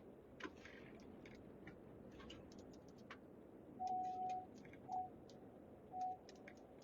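Faint, irregular light ticks, then from about four seconds in an electronic beep: one longer tone followed by short beeps about once a second.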